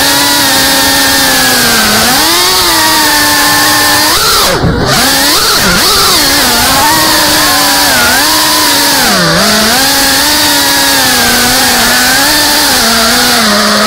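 Brushless motors and propellers of a CineLog35 FPV cinewhoop drone whining in flight, the pitch rising and falling with the throttle and dropping sharply when the throttle is cut about four and a half seconds in and again near nine seconds.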